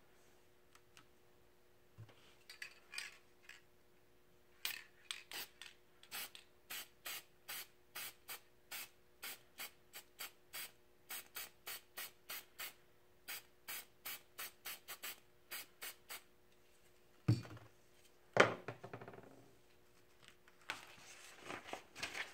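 Spray paint can fired in many short, quick bursts, two or three a second, misting a black circle pale through a paper mask. A couple of loud knocks follow, then paper rustling near the end as the mask is lifted.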